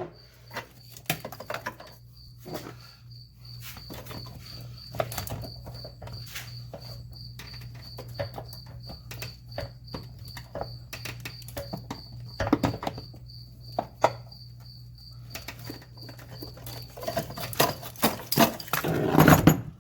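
Scattered clicks, knocks and rattles of hands and a screwdriver working plastic wiring-harness connectors loose under a car's dash. They are busier and louder near the end. A cricket chirps steadily in the background over a low constant hum.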